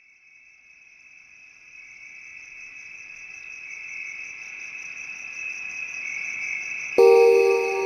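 Background music fading in from silence with a high, steady, rapidly pulsing trill that grows louder. About seven seconds in, bright chimes and a held chord come in.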